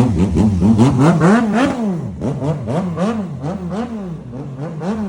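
Yamaha MT-09's inline three-cylinder engine revved in quick repeated throttle blips, its pitch rising and falling about two to three times a second. It is louder in the first two seconds and a little softer after that.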